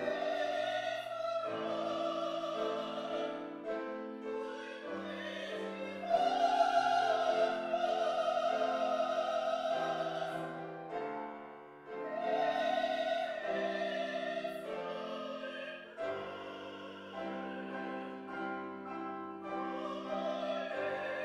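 A woman singing a classical-style solo in an operatic voice with vibrato, holding long notes, accompanied by piano. The strongest held note comes about six seconds in.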